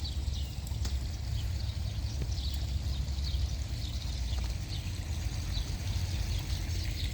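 A steady low rumble of wind on the microphone, with small birds chirping over it in many short, downward-sliding notes.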